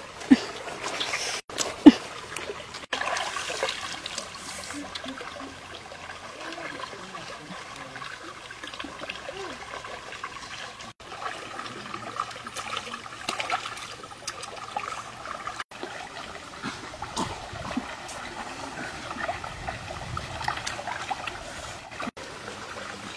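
Shallow stream water trickling and splashing while fish are handled and put into a wicker basket, with a sharp slap about two seconds in. The sound breaks off briefly several times.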